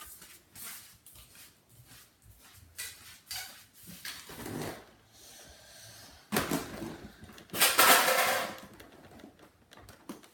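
Handling noise from a plastic Nerf toy blaster: scattered clicks and knocks with rustling, and louder noisy rushes about six and a half and eight seconds in.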